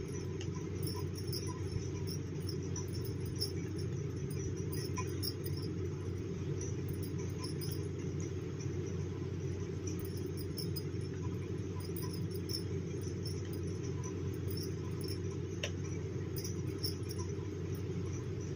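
Faint, irregular light clicks of knitting needles as stitches are purled one after another, over a steady low background hum.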